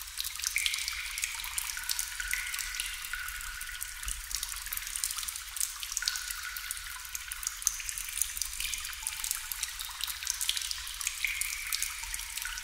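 Water dripping continuously: many small drops ticking, with short, clear plinks at several pitches recurring every second or so.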